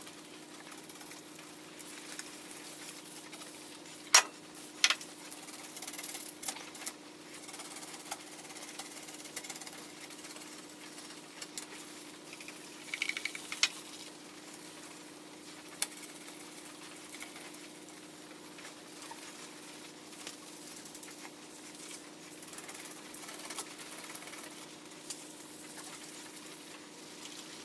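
Abrasive pad rubbing an oiled cast iron table saw top in irregular spells, with a few sharp knocks, the loudest about four seconds in, over a steady low hum.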